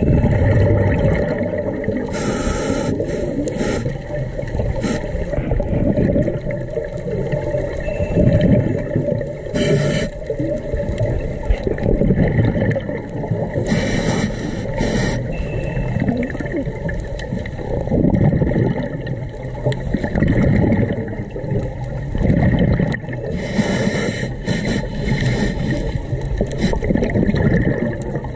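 A scuba diver's regulator breathing, heard underwater: long bubbling, gurgling exhales, broken four times by a short hissing inhale.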